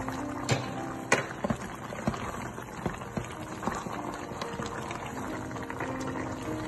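Chicken simmering and bubbling in a pan of sauce and broth, with two sharp clicks of a spatula against the pan about half a second and a second in.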